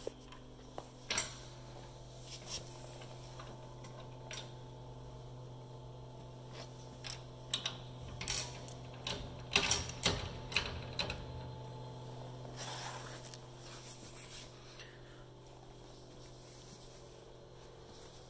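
Steady low hum with scattered sharp metallic clicks and clinks, a quick cluster of them between about seven and eleven seconds in.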